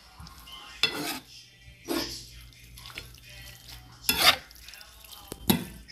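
A spoon stirring thick ground-meat bolognese sauce in a nonstick frying pan, with four separate strokes of the spoon against the pan and the sauce.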